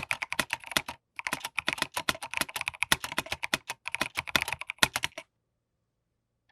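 Fast typing on a Rama Works Kara 60% mechanical keyboard fitted with stock, unmodded Durock V2 stabilizers: a rapid run of key clacks with a short pause about a second in, stopping abruptly about five seconds in.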